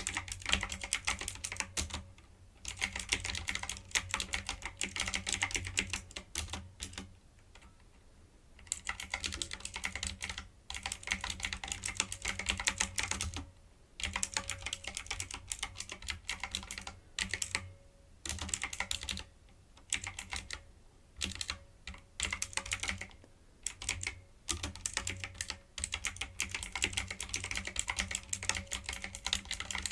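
Typing on a typewriter-style computer keyboard with round keycaps: fast runs of crisp key clicks, broken by brief pauses every few seconds.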